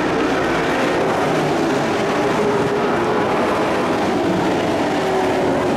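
Engines of dirt-track race trucks running at speed around an oval, a loud, steady drone.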